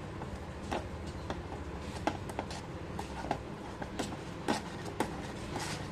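Steel spoon scraping and clicking against a perforated stainless-steel strainer as boiled potato is pressed and mashed through it, in irregular strokes, over a steady low hum.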